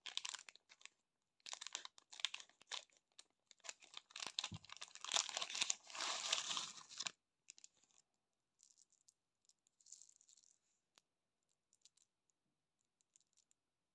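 Thin plastic candy bag crinkling and tearing as it is handled and opened, dense and busy for about the first seven seconds. After that, only faint scattered clicks of small hard sugar dragees knocking together.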